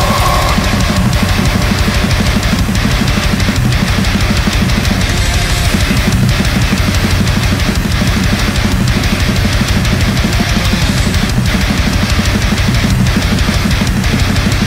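Loud backing music with a driving drum beat.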